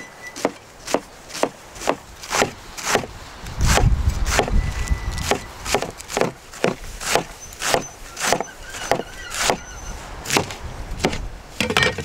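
Cleaver shredding iceberg lettuce on a wooden cutting board: a steady rhythm of crisp chops, about two a second, each cut crunching through the leaves and knocking on the board.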